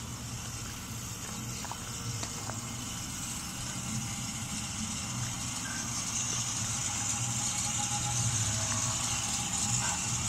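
Oil-well pumpjack running: a steady low mechanical hum that grows louder as it is approached, with a high steady hiss over it.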